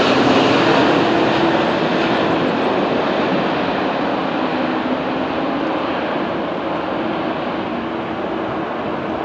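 Airbus A330 airliner's jet engines on final approach, passing just overhead and then moving away. A steady rush of jet noise, loudest at the start, fades gradually, with a low hum that sinks slightly in pitch.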